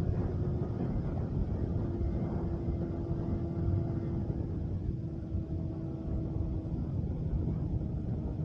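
BMW S1000RR inline-four engine running through an M4 aftermarket exhaust at a fairly steady engine speed, under a low rumble.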